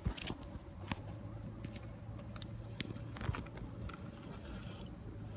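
Irregular footsteps and light knocks, someone walking over rough ground and handling gear, under a steady high-pitched buzz.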